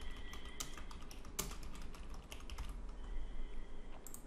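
Typing on a computer keyboard: quick, irregular keystrokes.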